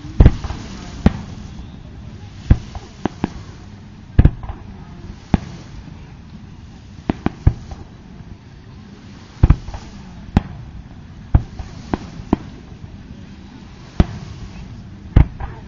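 Aerial fireworks shells bursting: a string of about twenty sharp bangs at irregular intervals, some loud, others lighter, sometimes two or three in quick succession.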